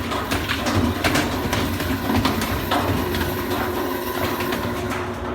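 Whirlpool WTW4816FW2 high-efficiency top-load washer on spin, its tub running out of balance with a rumble and repeated irregular knocks. This is the sign of worn suspension rods and springs.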